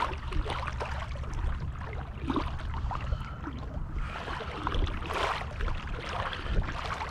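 Water sloshing and splashing around waders as someone wades through a river, over a steady low rumble of current or wind.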